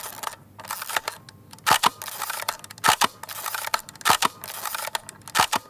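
An irregular, rapid series of sharp clicks, several a second, with a few louder snaps among them.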